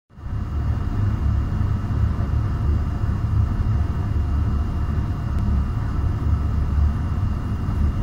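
Vestfrost VFTD8HT31W heat-pump tumble dryer running in its quietest mode: a steady low hum with a faint, thin high-pitched whine over it.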